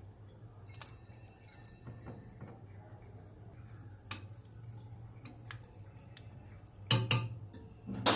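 A spoon knocking and clinking against a dish as dumplings are stirred into curry: a few separate knocks, the loudest two near the end.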